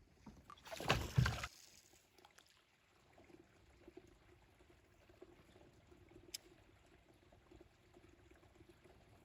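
A short splash of water beside a small fishing boat about a second in, then a faint steady hum with a single sharp tick near the middle.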